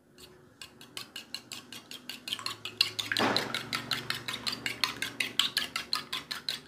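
A fork beating raw eggs in a small stainless steel bowl. Its tines tap fast and evenly against the metal, about six to seven strokes a second, starting about half a second in.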